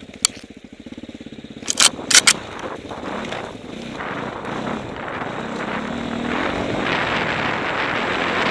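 Enduro motorcycle engine running at low revs while the bike pushes through brush, with a few sharp snapping knocks in the first couple of seconds. From about halfway the engine picks up and the sound grows louder with a rushing noise as the bike gains speed.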